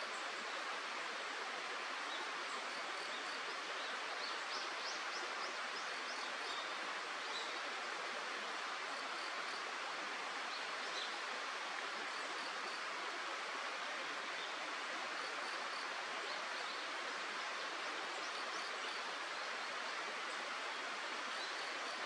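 Steady rushing of flowing stream water, even and unchanging, with faint short high chirps scattered over it, most of them around four to six seconds in.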